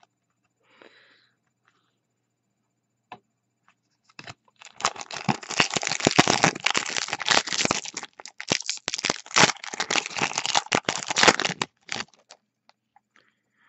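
A Yu-Gi-Oh! Star Pack foil booster wrapper being torn open and crinkled by hand: a dense crackling rustle that starts about four seconds in and stops near the end.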